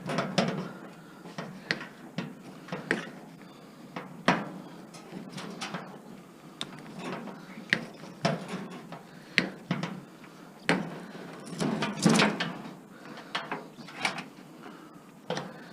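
Irregular clicks and metal clatter of hand tools working on a scrap appliance, cutting its wiring harness loose, with sharp snaps every second or so.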